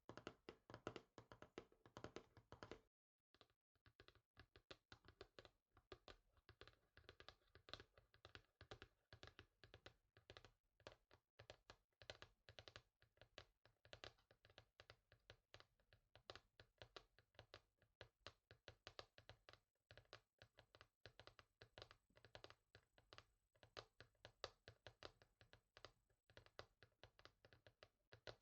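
Fingers tapping rapidly and continuously on a hard surface, many quick taps a second. The taps break off briefly about three seconds in, then carry on with a slightly brighter, thinner sound.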